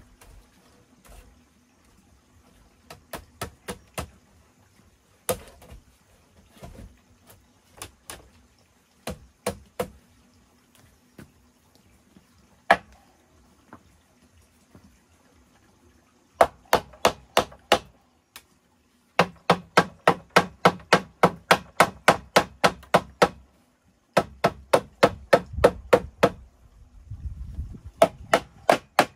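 Sharp blows of a hand tool on bamboo. Scattered, lighter strikes come first; from about halfway on there are loud, fast runs of about four to five blows a second, broken by short pauses.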